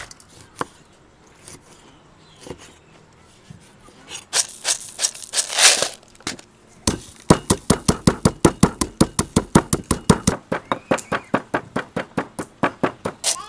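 Stone mortar and pestle pounding whole black peppercorns: quick, even knocks, about five a second, starting about seven seconds in. A brief rustle comes a couple of seconds before the pounding begins.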